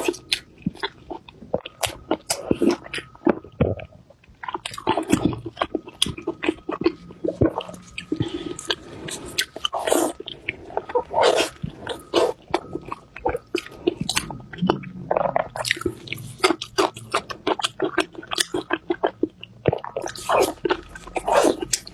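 Close-miked chewing and biting, with crunchy mouth sounds coming in quick, irregular clicks and crackles.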